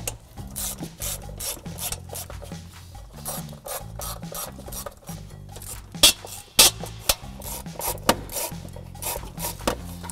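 Quarter-inch-drive ratchet clicking in quick runs of strokes as it backs out 8mm intake manifold bolts, with two sharper metal clinks about six seconds in.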